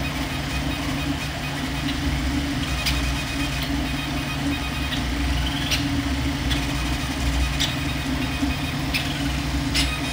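VzBoT 330 3D printer running a print: a steady low hum from its fans and CPAP cooling blower, with stepper-motor whine that rises in pitch about five seconds in and a few sharp ticks as the print head moves.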